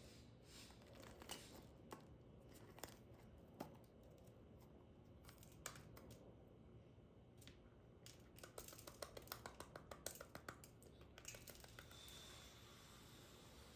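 Faint handling noises: a few scattered sharp clicks, then a quick run of small clicks or crinkles lasting about three seconds.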